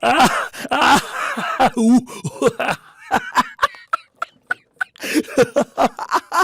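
A person laughing loudly and at length in rapid rhythmic ha-ha bursts. In the middle the laugh thins into short, sharp breathy pulses before picking up full-voiced again.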